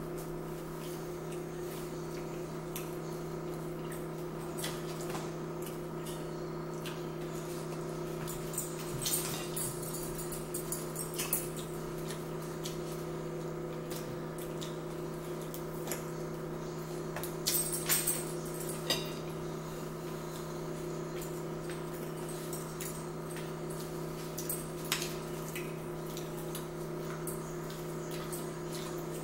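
Close-up eating sounds: chewing, lip smacking and small crisp clicks of fried shrimp and french fries being bitten and handled, heaviest in a few short clusters. A steady low electrical hum lies under everything.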